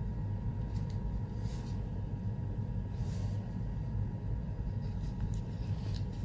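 Steady low room rumble with a few faint, soft rustles and clicks, from a pug nosing at a paper index card on a duvet.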